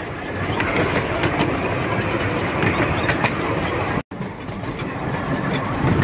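Narrow-gauge steam train running along the track, heard from on board: a steady rumble and rattle of the moving train. There is a brief break about four seconds in.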